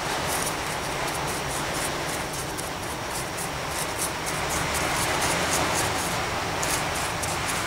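Paintbrush dabbing and scrubbing a watery black wash onto plaster rock castings: quick, irregular soft scratches of the bristles over a steady hiss.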